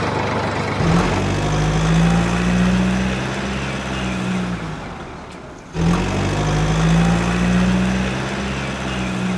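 Truck engine sound effect revving up and running, played twice in a row: each run lasts about four seconds, fades out, and the second starts abruptly about six seconds in.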